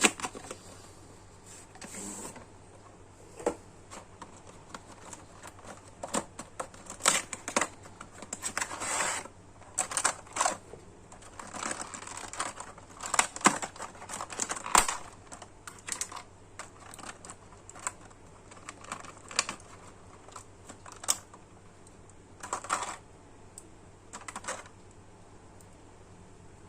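Irregular small clicks, taps and short scrapes of hard plastic parts and tools being handled during repair of a small action figure. They come singly and in quick clusters, with short pauses between.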